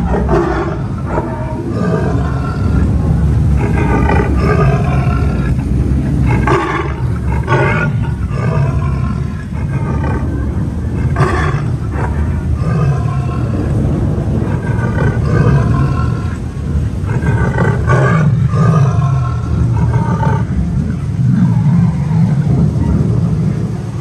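Recorded tiger roars and growls from an animatronic tiger display, coming over and over every few seconds above a loud, steady low rumble.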